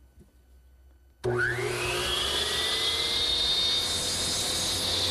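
Electric miter saw switched on about a second in. Its motor whine rises as it spins up, then it runs steadily at speed, set at 45 degrees to chamfer the corners of a wooden shaft.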